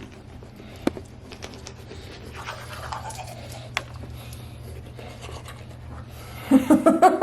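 Toothbrush scrubbing teeth: soft scratchy brushing over a low steady hum, with a couple of small clicks. A voice breaks in loudly near the end.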